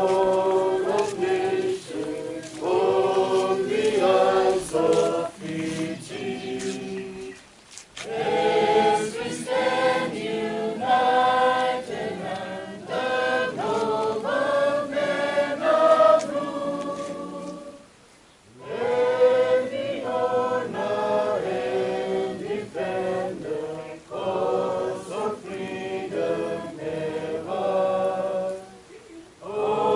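A group of people singing together without accompaniment, in long phrases with short breaks about eight and eighteen seconds in.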